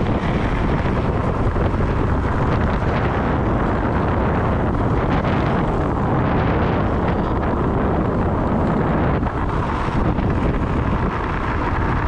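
Loud, steady rush of wind buffeting the microphone at downhill speed, over the rumble of board wheels rolling on asphalt.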